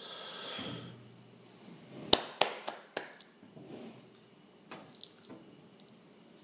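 A short hiss at the start, then four sharp taps or clicks in quick succession a little after two seconds in, and a few fainter ticks near five seconds.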